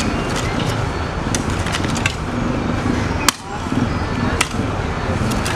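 Mitsubishi Fuso truck's diesel engine running under load as the laden truck works through slippery mud, with scattered knocks and one sharp crack a little past halfway.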